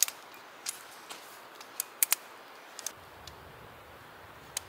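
Light, sharp clicks of tent-pole sections knocking and snapping together as a shock-corded tent pole is unfolded and assembled. There are about eight clicks, spaced irregularly.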